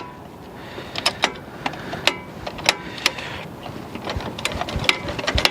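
Irregular sharp clicks and light metallic taps of hand tools and brake parts being handled at a front disc brake caliper, coming closer together near the end.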